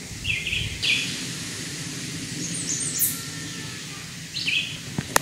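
Woodland birds giving short chirps, several scattered calls over a steady low background noise.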